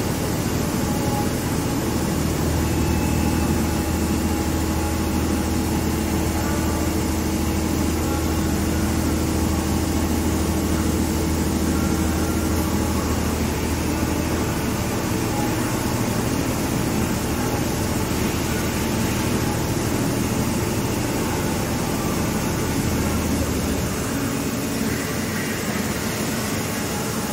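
Haas EC-400 horizontal machining center running a cut with flood coolant spraying: a steady machining noise with a held tone that stops about halfway through, and a low hum that drops away near the end.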